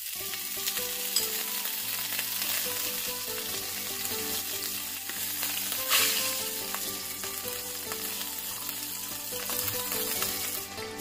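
Butter melting and sizzling in a hot non-stick frying pan while a spatula stirs it, with a louder spatula scrape against the pan about six seconds in.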